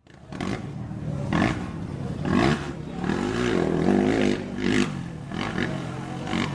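Motocross ATV (quad) engines revving, their pitch rising and falling again and again as the throttles open and close. The sound cuts in suddenly at the start.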